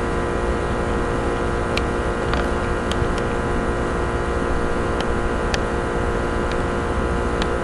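A steady electrical-sounding hum made of many fixed tones, with a handful of faint sharp clicks scattered through it.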